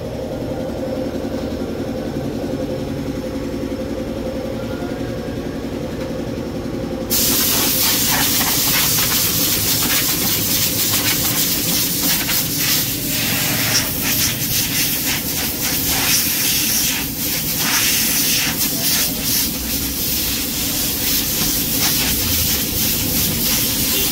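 An engine hums steadily. About seven seconds in, a compressed-air nozzle starts blowing through a tractor's air filter element with a loud, wavering hiss, clearing the fine dust out of it.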